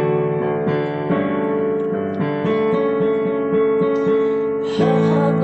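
Instrumental introduction played on piano or electric piano: held chords with a quick, rippling run of notes over them.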